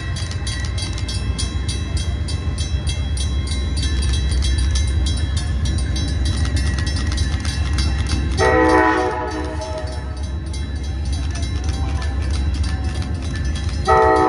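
Amtrak diesel locomotive approaching a grade crossing: a steady low engine rumble under a bell dinging about three times a second, then two horn blasts, one about eight seconds in and the loudest just at the end.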